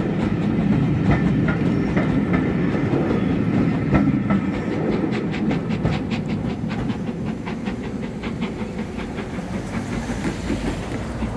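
Railway coaches of a steam-hauled train rolling past close by, their wheels rumbling and clicking on the track. There is a quick run of regular clicks around the middle, and the rumble fades as the last coaches go by.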